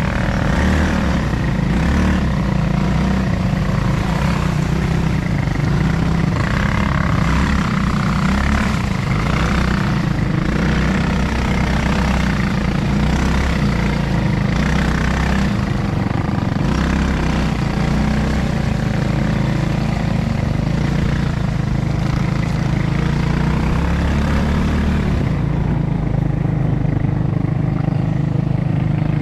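Steady engine and road noise heard from aboard a moving vehicle, a continuous low rumble with a rushing haze above it.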